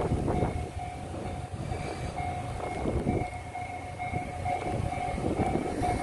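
JR Hokkaido KiHa 54 diesel railcar pulling into the station, its engine and wheels rumbling as it approaches, with a steady high tone running throughout. Wind buffets the microphone.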